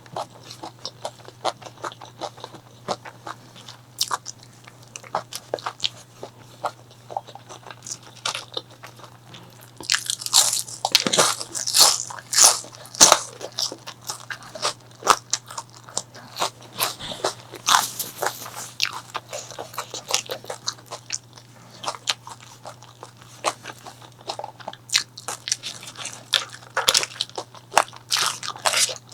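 Close-miked chewing and crunching of crisp food, with many sharp crackles and several louder bouts of crunching partway through and again near the end.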